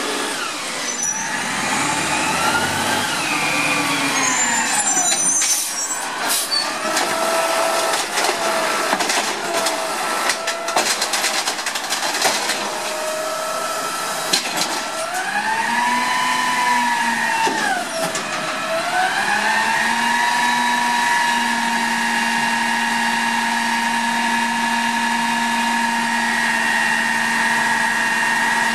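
Peterbilt CNG garbage truck with an Amrep automated side-loader arm. Its engine pitch falls and rises as it pulls up, with scattered knocks and rattles in the middle. Then the engine revs up and holds a steady higher pitch to drive the hydraulics while the arm lifts and dumps a cart.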